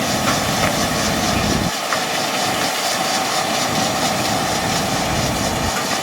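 Kubota tractor's diesel engine running steadily. Its low rumble drops away abruptly about two seconds in.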